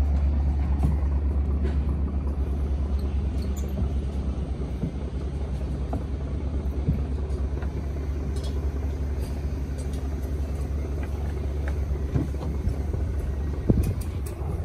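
A steady low rumble of a running engine or machine, with a few light knocks scattered through it.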